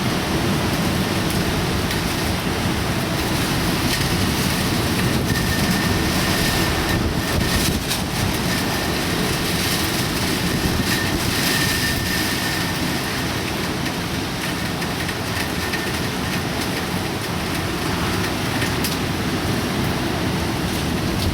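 Steady roar of typhoon wind and rain, with a faint high whistle coming and going in the middle.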